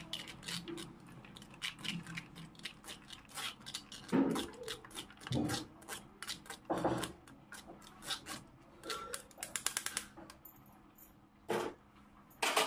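Metal spoon scraping and tapping against a stainless steel mesh strainer and bowl, pressing kiwi pulp through the sieve: irregular light clicks and scrapes with a few louder knocks.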